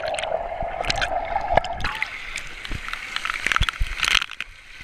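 Muffled underwater gurgling and water noise heard through a submerged waterproof action camera, with a steady muffled tone for about the first two seconds. Water splashes against the camera as it breaks the surface near the end.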